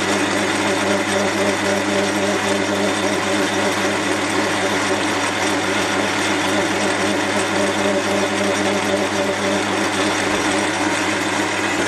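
Metal lathe running steadily, turning a cast brass bar while the tool takes a light skim cut along it under power feed.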